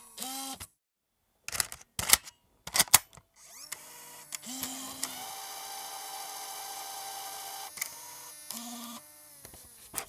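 MiniDV camcorder tape mechanism: a short motor whir, then several sharp plastic-and-metal clicks. After that the tape transport motor whirs steadily with thin whining tones for about five seconds, winds down near the end, and stops with clicks.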